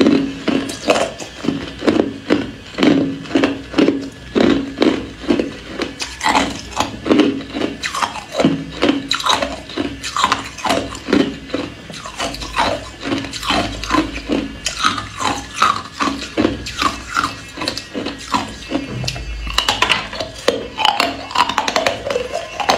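Hard ice cubes being chewed close to the microphone: a steady run of loud crunches, roughly three every two seconds.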